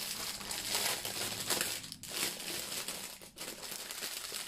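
Clear plastic wrapping crinkling in irregular bursts as a bundle of bagged diamond-painting drills is handled and turned over.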